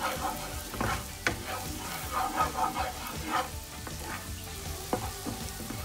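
Minced garlic sizzling in melted butter in a non-stick frying pan while a wooden spatula stirs it. The spatula knocks against the pan about a second in, again a moment later, and near the end.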